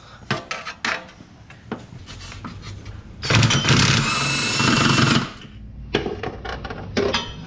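Clinks of a socket and extension being fitted, then a cordless power tool runs for about two seconds with a whine, backing out a transmission bell-housing bolt on a long socket extension. A few more metal clinks follow near the end.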